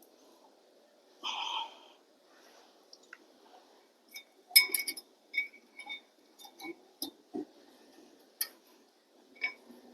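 Metal brake pad clips being pressed into place on the caliper bracket: a scattered run of sharp little clicks and clinks of metal on metal, starting about four seconds in, after a short breath about a second in.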